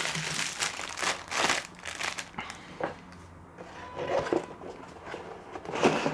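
Plastic packaging crinkling and rustling as a bagged model kit sprue and its box are handled, in a run of short rustles over the first couple of seconds and a few more later.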